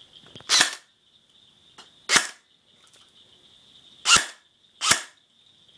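ASGI G4 A2 Flaming Hog electric airsoft rifle fired four single shots, each a short sharp snap of the gearbox cycling, the last two a little under a second apart. It is fired with no magazine, so no BBs.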